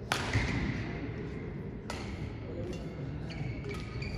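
Badminton racket striking the shuttlecock twice, a rally shot right at the start and another about two seconds later, with a few short high squeaks of shoes on the court. A steady murmur of spectators fills the hall beneath.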